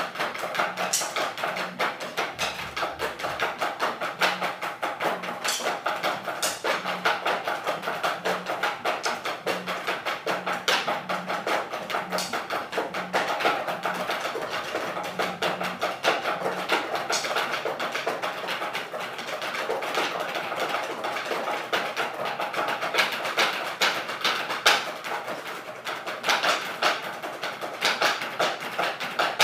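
A group of drummers playing a snare drum solo together with sticks on wooden practice pads: a dense, fast stream of stick strokes with louder accents here and there.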